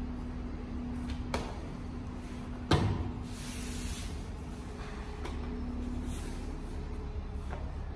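Grappling on foam puzzle mats: gi fabric rustling and bodies shifting, with one sharp thump on the mat a little under three seconds in and a few fainter knocks. A faint steady hum runs underneath.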